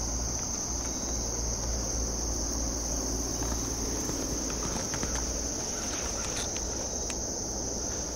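Steady, high-pitched chorus of crickets and other insects, with a low rumble underneath and a few faint clicks in the second half.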